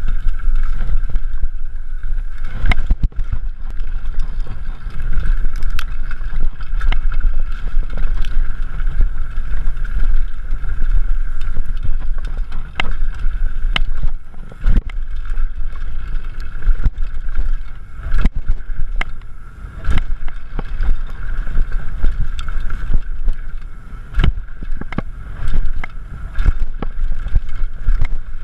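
Mountain bike descending a bumpy dirt trail heard from a rider-mounted action camera: wind rumbling on the microphone and tyres rolling on dirt, with frequent sharp knocks and rattles from the bike over bumps and a steady high buzz.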